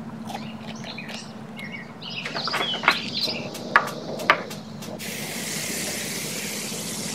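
Soft rustling of corn husks, then a few sharp clicks as a gas grill's burner knob is turned and lit. From about five seconds in, corn cobs and meat patties sizzle steadily on the hot grill grate.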